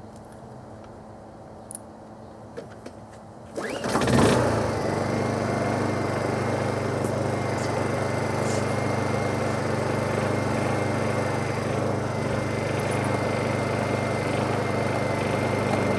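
Honda EU2000i inverter generator being started: a few small clicks as the controls are set, then the single-cylinder four-stroke engine is pull-started, catches about four seconds in with a brief surge, and settles into a steady, very quiet run.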